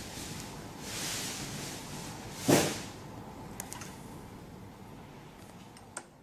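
Tweezers pulling sewing thread out of a coverstitch seam on fabric, the stitch loops unravelling: a faint rustle over a steady hiss, with one short, sharp rustle about two and a half seconds in and a few faint ticks near the end.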